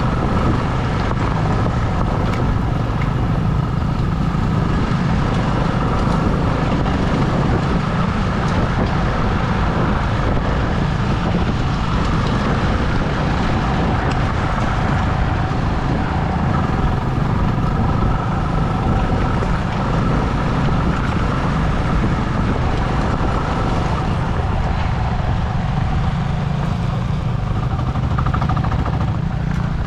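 Vehicle engine running steadily while under way, mixed with road and wind noise.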